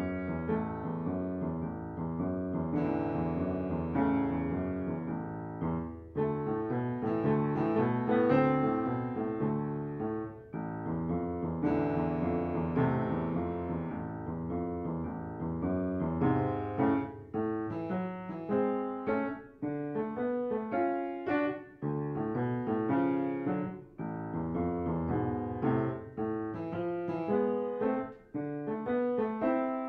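Upright piano played with both hands: repeated chords and broken-chord figures in a steady rhythm, with brief pauses between phrases.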